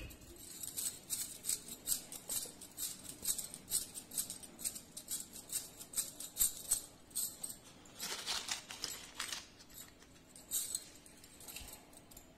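Soft, moist paneer laddu mixture being rolled and patted between the palms: a string of light, crisp pats at about three a second, then a short scraping rustle about eight seconds in as more mixture is handled.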